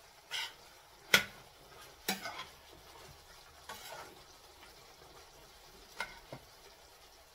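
A cooking spoon scraping and knocking against a stainless steel pan as chicken karahi is stirred while it fries in oil (the bhuna stage). About six separate strokes, the sharpest about a second in, over a faint sizzle.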